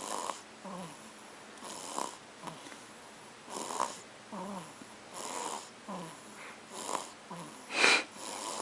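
A four-week-old baby snoring in its sleep: a breathy snore about every one and a half seconds, each with a short falling little grunt. Near the end one louder, sharper breath stands out.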